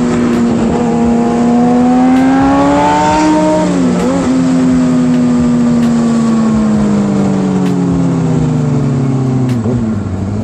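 Sport bike engine running under way: its pitch climbs for about three seconds and drops sharply at an upshift about four seconds in. It then falls slowly as the revs ease off, with another short dip near the end.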